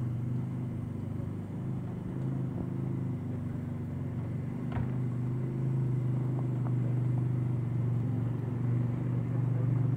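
Antique steam traction engine running in place, a steady low mechanical drone, with a single sharp knock about halfway through.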